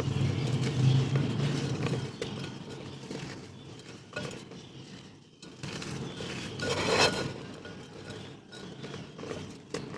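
Dry, hardened mud (clay) pieces being crushed and crumbled by hand, a dense crunching crackle that is loudest in the first two seconds and then thins out, with one sharper crunch about seven seconds in.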